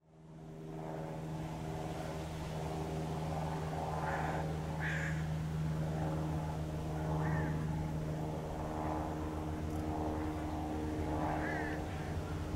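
A steady low mechanical drone, like a distant engine running, fading in over the first second, with faint chirping calls every second or two.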